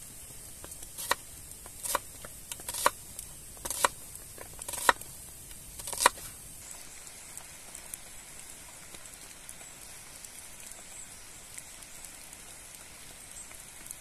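Large knife slicing an onion on a wooden cutting board: six sharp knocks of the blade on the board, about a second apart. About six and a half seconds in, this gives way to the faint crackle of a small wood campfire.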